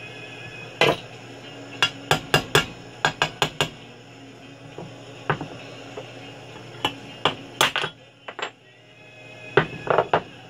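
Sharp knocks and clinks of metal chainsaw crankcase parts being set down, tapped and shifted on wooden blocks on a workbench. They come in irregular clusters: a rapid run of taps about two to three seconds in and a loud group near the end.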